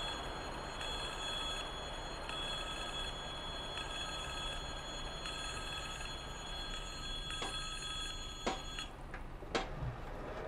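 Level-crossing warning bell ringing in a repeating on-off pattern, then cutting off about nine seconds in, with a few sharp clicks around the cut-off. The bell stopping marks the crossing about to reopen, its raised road-blocker plates still up.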